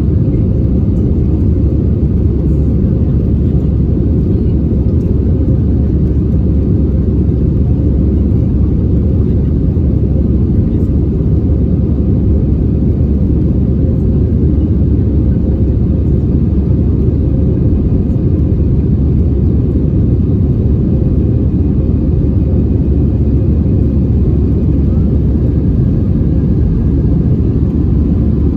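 Steady, loud low rumble of an airliner's jet engines and airflow, heard inside the passenger cabin.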